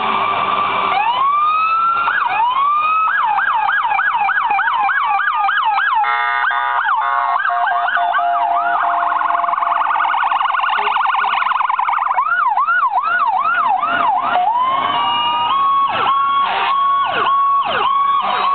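Emergency vehicle sirens as the apparatus drive off. The electronic sirens switch between a slow rising wail and fast repeated yelp sweeps, about two or three a second, with a very rapid warble around ten seconds in. A horn blast comes about six seconds in, and near the end several sirens overlap with a steady horn tone.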